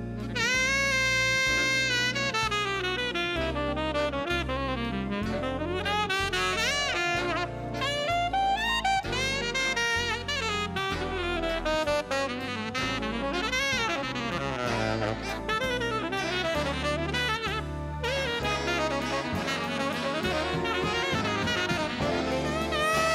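Jazz big band recording: a saxophone solo line, bending and sliding between notes, over bass and drum kit.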